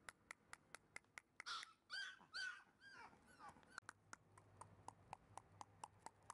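Shiba Inu puppy giving a few short, high whimpers about one and a half to two and a half seconds in, over a faint, regular run of small squeaky clicks, about four a second.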